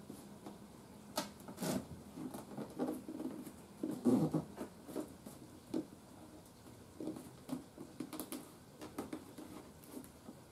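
Irregular light scratching, tapping and rubbing of hands working on a wooden radio cabinet, with the loudest knock about four seconds in.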